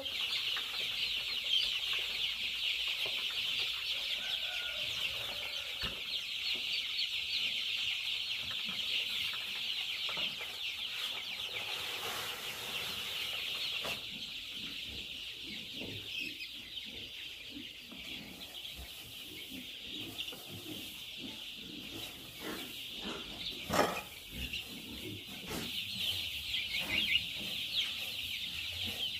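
A large flock of young chicks peeping all at once, a dense, high-pitched chorus of short chirps. A few sharp knocks break in during the second half.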